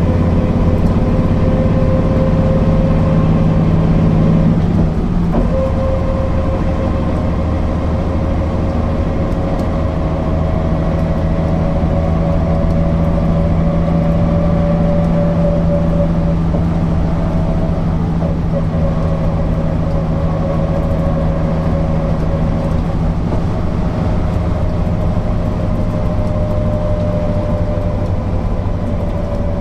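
Mercedes-Benz O408 bus's straight-six diesel engine running while the bus drives, a steady low hum with a whine that slowly rises and then falls back. There is a brief dip in the sound about five seconds in.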